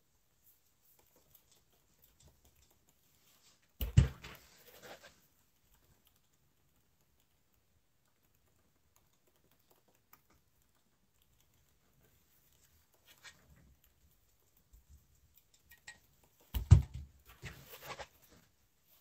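A clothes iron knocked down onto its heel on a table with a short rustle of fabric about four seconds in, then quiet, then another knock and a rustling of fabric being handled near the end.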